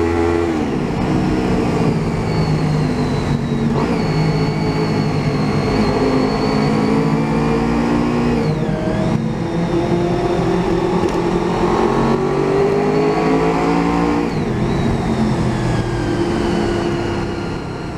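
Honda VFR800Fi V4 engine through a Delkevic aftermarket exhaust, accelerating through the gears: the engine note climbs steadily and drops sharply at each upshift, about four times, over wind rush. The sound fades out near the end.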